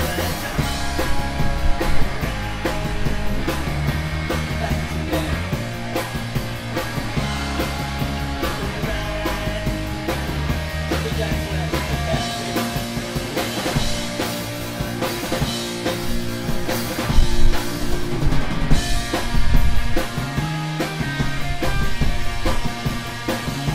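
Live rock band playing: amplified electric guitars over a driving drum kit, with the bass line and snare hits prominent.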